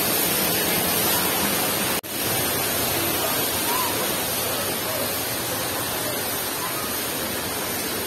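Steady rushing of a waterfall's falling water, with a thin, steady high hiss on top. The sound cuts out for an instant about two seconds in.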